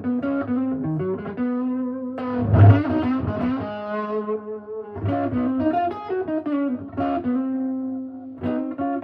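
Fender Telecaster's neck humbucker played through an Analogman DESTRUCTO fuzz circuit with the guitar's volume rolled down to about 1, which gives a bright, nearly clean tone with a sharp upper bite. Lightly picked single notes and chords follow one another, with a harder strum about two and a half seconds in.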